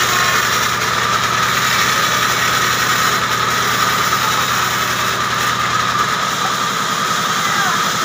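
A large vertical band saw running steadily as it rips a short hardwood log, with a steady high tone from the blade over the machine's noise.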